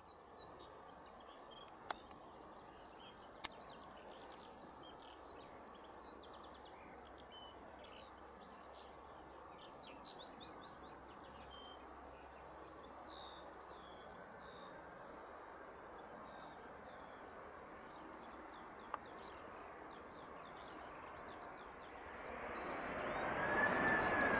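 Small birds chirping and trilling in repeated song phrases over faint distant background noise. About 22 seconds in, the Airbus A300-600 freighter's jet engines swell into a rising rush with a high whine as the aircraft lands.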